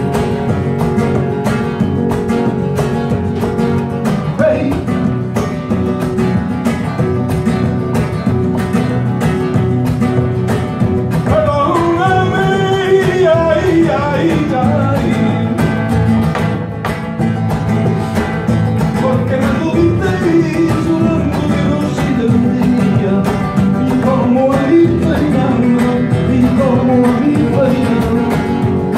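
Two acoustic guitars playing rumba flamenca live, with a quick, driving strummed rhythm. A male voice sings a wavering melody over it from about twelve seconds in.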